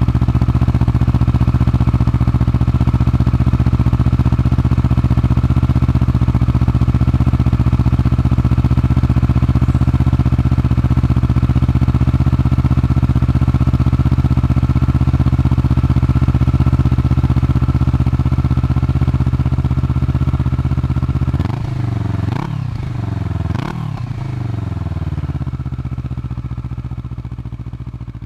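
Kawasaki Vulcan S 650's parallel-twin engine idling steadily through an aftermarket Arrow slip-on exhaust. Its throttle is blipped twice about three-quarters of the way through, the revs rising and falling each time, and it then settles back to idle as the sound fades out near the end.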